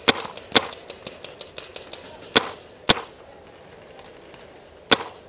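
Paintball gunfire: five sharp, loud cracks at irregular intervals, about two close together at the start, two more past the middle and one near the end, with fainter pops from farther off between them.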